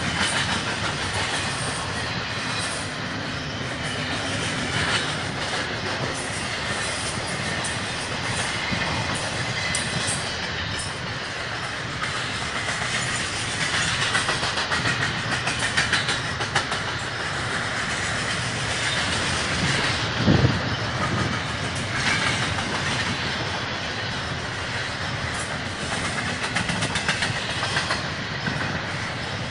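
BNSF double-stack intermodal freight train rolling past: steady rumble of steel wheels on the rails with clickety-clack over the rail joints, and one louder bang about twenty seconds in.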